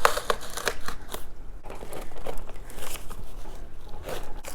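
Packaging being handled and opened by hand: irregular crinkling, crackling and crunching, with a short lull about a second and a half in, then more crackling.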